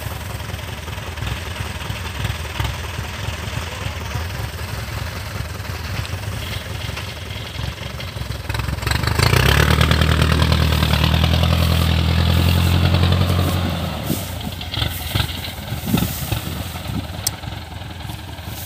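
Rice combine harvester's diesel engine running steadily. About halfway through an engine comes close and grows much louder with a deep, even hum, then drops back a few seconds later.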